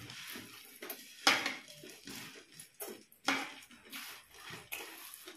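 Puffed rice (muri) being scooped by hand off plates and chewed, with irregular rustling, scraping and crunching; the loudest scrapes come about a second in and again about three seconds in.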